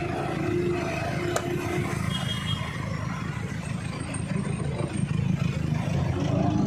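A vehicle engine running steadily with a low exhaust rumble, and a single sharp click about a second and a half in.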